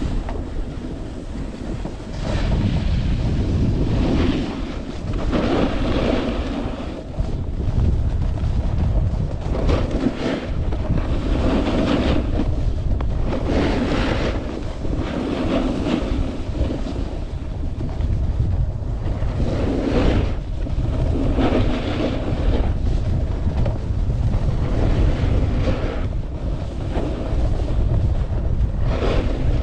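Wind rushing over the camera microphone while skiing downhill, with the scrape of skis on packed snow swelling about every two seconds as the skier carves turns.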